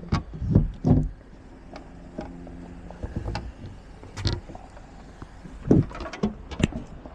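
Short knocks and clicks of a locksmith's lockout tools working at a locked car door, several near the start and a few more later, over a steady low hum.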